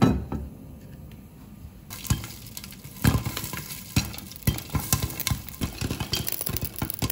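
A glass lid set down on a frying pan with a clink, then oil sizzling and popcorn kernels starting to pop under the lid, the pops sharp and coming faster toward the end.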